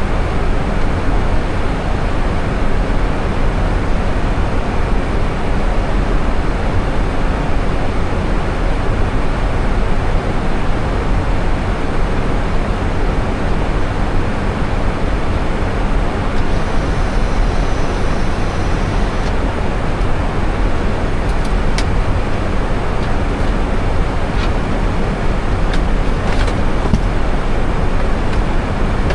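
Steady rushing noise of airflow and engines heard inside an Airbus A320 cockpit in flight on descent, with a few faint ticks in the second half.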